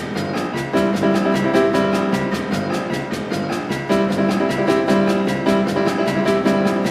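Instrumental background music with a steady, fast beat.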